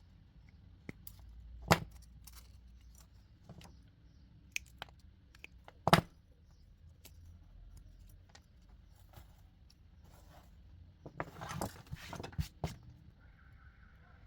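Small tools and parts being handled on a hard work surface: scattered clicks and light knocks, two sharper knocks about two and six seconds in, and a brief rattling clatter near the end.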